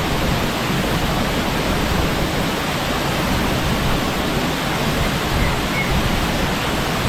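Waterfall crashing onto rocks close by: a loud, steady roar of falling water.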